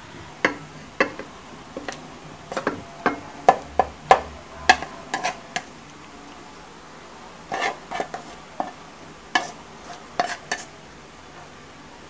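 Chopsticks scraping and tapping against a metal wok and a serving bowl as stir-fried beef and peppers are pushed out of the wok. The sound is a scatter of sharp, irregular clicks and knocks, coming in two bunches.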